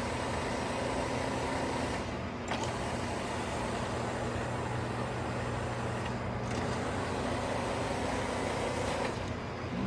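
Sharp 3580M engine lathe running with a steady machine hum while its power rapid traverse drives the slide. A higher whine stops with a click about two seconds in and comes back for a couple of seconds near the end.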